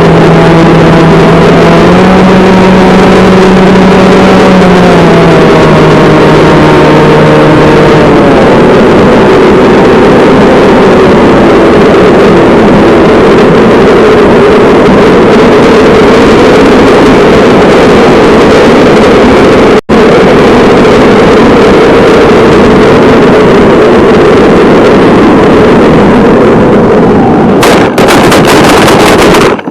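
Onboard-camera audio of a NanoTalon FPV plane's electric pusher motor and propeller in flight, very loud and distorted. A buzzing whine steps up and down in pitch for the first several seconds, then gives way to a steady rushing noise. The sound drops out for an instant about two-thirds through and cuts off at the very end.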